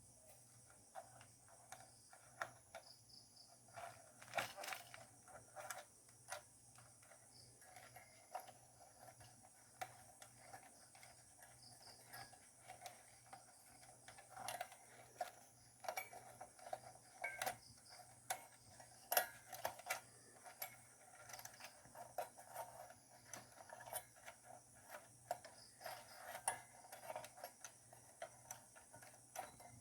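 Faint, scattered clicks and knocks of hands handling desktop computer parts during assembly, irregular throughout, over a faint steady high-pitched hum.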